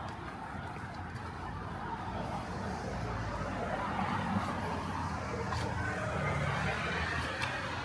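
Road traffic on a city street: a motor vehicle approaches and passes, its noise swelling through the middle and easing off near the end.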